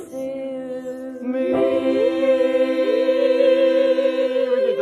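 A small group of young male and female voices singing a cappella, holding a sustained chord. More voices join about a second and a half in, some sliding up into their notes.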